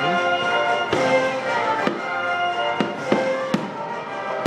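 An orchestra plays steadily while firework shells go off in several sharp bangs, roughly one a second, the loudest ones near the end.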